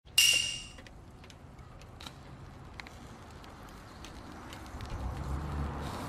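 A short, bright ringing sound effect at the very start, then the quiet crackle of a wood-and-charcoal fire in a small grill, with scattered sharp pops.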